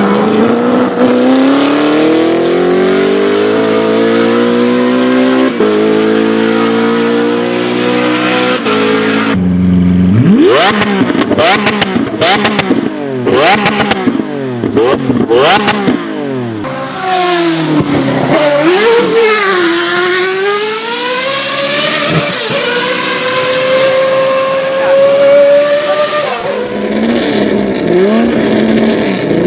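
High-performance engines revving and accelerating in several separate clips. First a long, steady climb in pitch under acceleration; then, after a sudden change, a run of quick rev blips about once a second with sharp cracks among them; then slower rising and falling revs, with another abrupt change near the end.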